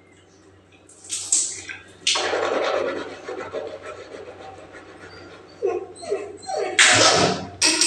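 A woman hawking and clearing her throat while brushing her teeth, in several rough rasping bursts: a short one about a second in, a longer one about two seconds in, and the loudest near the end.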